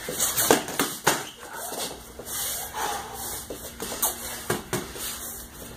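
Padded sparring sticks striking in quick flurries: a cluster of sharp clacks in the first second or so and a few more near the end, with feet shuffling on the mat between them.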